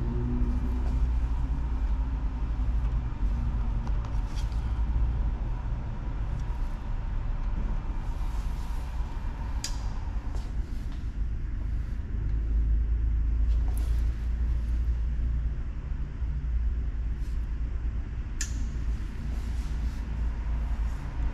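Steady low rumble of a car running, heard from inside the cabin, with a few short clicks now and then.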